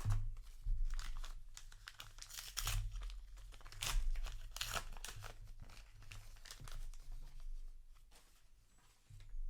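Paper booster pack wrapper being handled and torn open: an irregular run of crinkling and tearing rustles.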